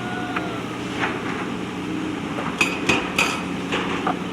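JCB backhoe loader's diesel engine running steadily, with three sharp metallic clanks about a third of a second apart a little past halfway: the steel bucket striking stones.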